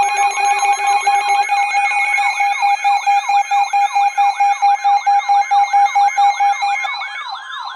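Several electronic sirens layered together: a fast rising-and-falling yelp repeating about four times a second, a slower high warble above it, and steady alarm tones underneath. The sound fades out near the end.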